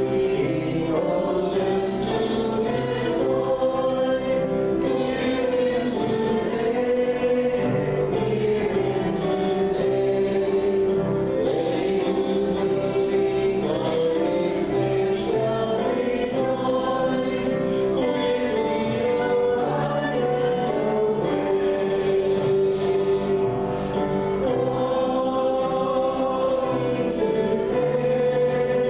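Church choir and congregation singing a gospel hymn together, in long sustained notes.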